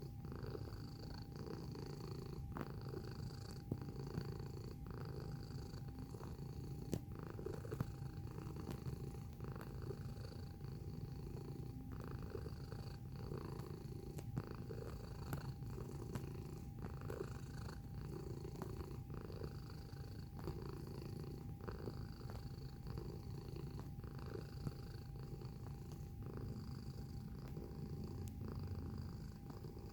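Domestic cat purring steadily, recorded close up. The purr swells and eases about once a second with each breath, and faint ticks come through now and then.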